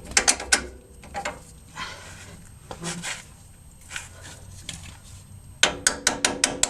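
Scattered metal clanks and knocks of tools working a truck's front strut assembly into place. About five and a half seconds in, a fast, even run of loud, sharp metallic strikes begins, about six a second.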